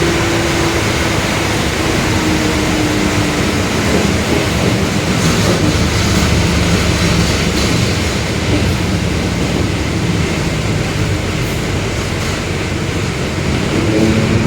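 Mercedes-Benz OF-1721 Bluetec 5 bus heard from inside the cabin at road speed: a steady rumble of diesel engine, drivetrain and road noise. A faint whine in the first few seconds fades away; the bus's differential is noted for its hum ("roncando").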